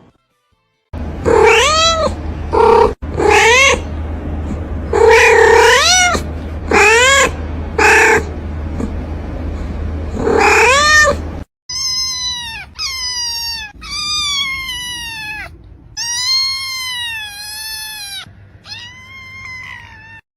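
Cats meowing over and over: loud, drawn-out meows over a low steady rumble in the first half, then, after a sudden cut, a second run of meows that each fall in pitch.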